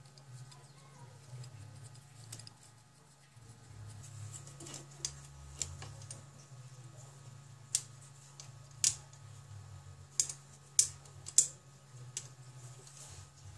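Sharp, irregular clicks and taps from hands working the motorcycle's gear-shift lever and its rubber peg, with the loudest clicks bunched in the second half. A steady low hum runs underneath.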